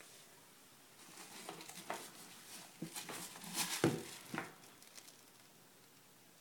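Handling noise as the doll and camera are moved about: soft rustling with a few light knocks, from about a second in until about five seconds, loudest near the four-second mark.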